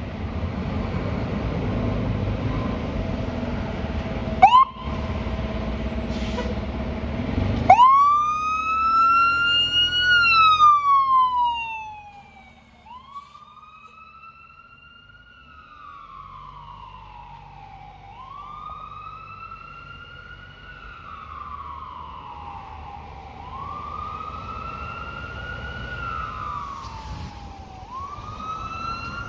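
Fire truck siren wailing, rising and falling about every five seconds, over heavy truck engine rumble as the apparatus passes close by. A short siren chirp comes about four seconds in. The first long wail, around ten seconds in, is loudest; after that the engine fades out and the siren carries on much fainter in the distance.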